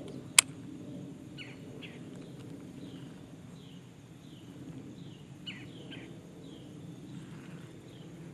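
A bird calls over and over with short downward-sliding chirps, about two a second, over a steady low outdoor rumble. A single sharp click about half a second in is the loudest sound.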